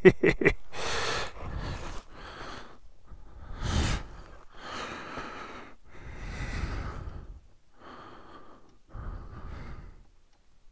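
A person breathing heavily and sighing: a string of about eight loud breaths, irregularly spaced, the loudest about four seconds in.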